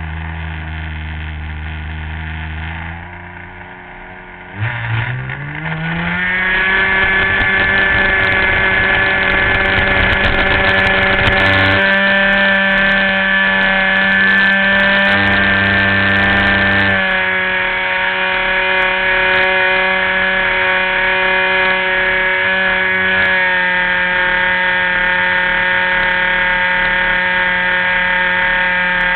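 RC model airplane engine, heard from on board, running low and steady, then dropping back about three seconds in. It then opens up, rising in pitch over about two seconds to full throttle, and runs high and steady, with slight pitch shifts at throttle changes.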